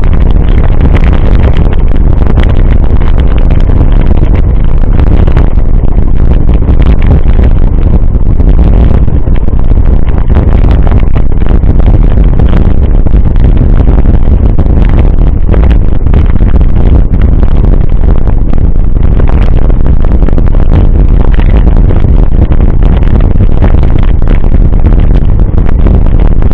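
Steady wind rumble on the microphone of a mountain bike's on-board camera while riding, with scattered clicks and rattles from the bike on a rough track.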